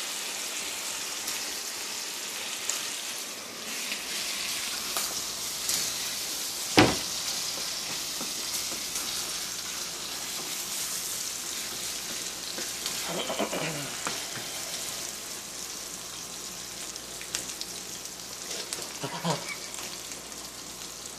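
Ground meat sizzling steadily in a frying pan on a gas burner while it is stirred with a plastic spatula. One sharp, loud knock comes about seven seconds in.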